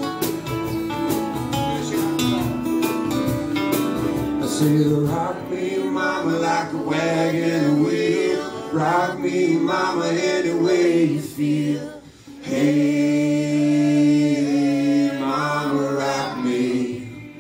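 Live acoustic band: a strummed acoustic guitar, then from about five seconds in several men singing together into microphones over it, with a brief break in the voices about twelve seconds in.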